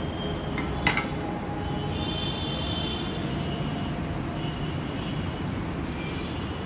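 A steady low rumble with a sharp clack about a second in, as the nonstick frying pan is set down on the gas stove's grate.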